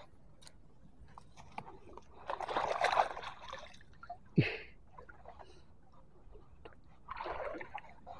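Pond water splashing and sloshing at the bank as a mesh keep net is put into the water and hands work in it, with one sharp plop about four and a half seconds in.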